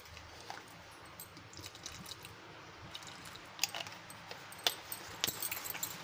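Water poured into a steel bowl of gram-flour batter, a faint trickle, followed by a few sharp clicks in the second half.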